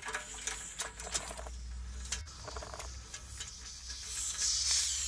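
Radiator bleed valve being opened with a key: small metallic clicks and scraping, then a hiss about four seconds in as air is drawn into the radiator while the heating system drains down.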